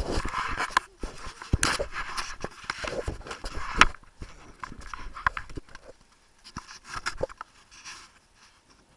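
Close rustling and scraping of jacket fabric against a body-worn camera, with irregular knocks and clicks, the loudest about four seconds in, as the camera is jostled; it quietens from about six seconds in.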